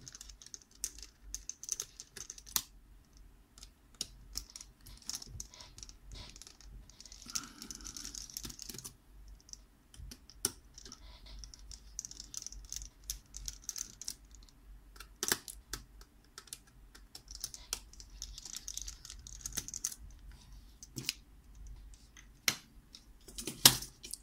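Small screwdriver clicking and scraping on the screws of a ThinkPad X1 Carbon's fan and heatsink assembly as they are undone. Scattered sharp clicks and taps on the laptop's parts, broken by short stretches of scratchy rubbing, with a louder click near the end.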